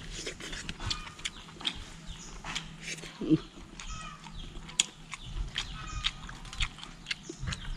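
Chewing and wet lip-smacking while eating fried duck and rice by hand, with many short, sharp smacks scattered irregularly throughout.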